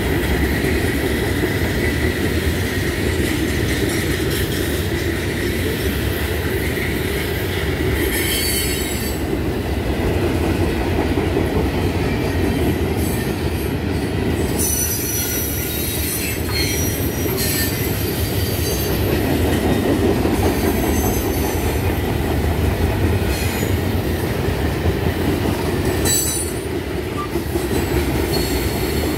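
Freight train rolling past with a steady low rumble of wheels on rail. Over it, the wheels squeal in short, high-pitched spells as the cars take the connection track.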